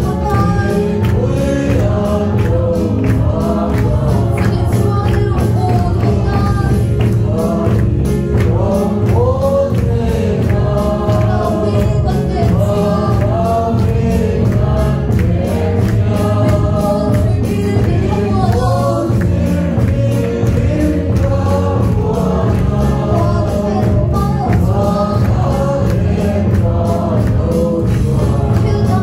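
A congregation singing a Mizo gospel hymn together through a loudspeaker system, over a steady low beat.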